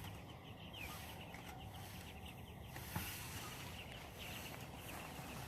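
Flock of chickens peeping, many short falling chirps overlapping, with a single knock about three seconds in.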